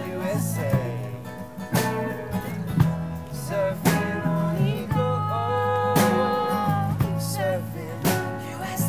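Live acoustic band music: an acoustic guitar strummed in strong strokes about every two seconds over a steady bass line, with a wavering melody line above.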